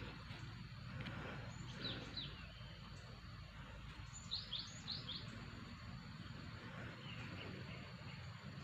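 Forest ambience: a steady insect drone with a low rumble beneath, and a small bird chirping: two short falling chirps about two seconds in, then a quick run of four chirps a little past the middle.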